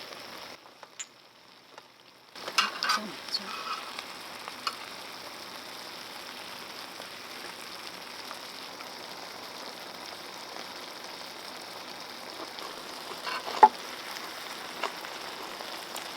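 Food sizzling steadily in a frying pan, with a utensil clinking against the pan a few times about three seconds in and once sharply near the end. The sizzle dips briefly near the start.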